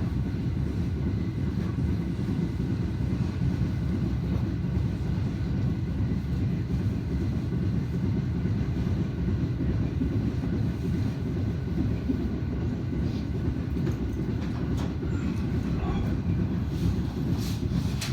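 Steady low rumble of a train heard from inside the passenger car, with a few faint ticks near the end.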